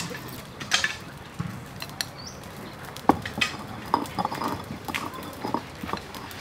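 Irregular clinks and light knocks of kitchen utensils: a stone pestle worked in a stone mortar of dipping sauce, and chopsticks against a bowl.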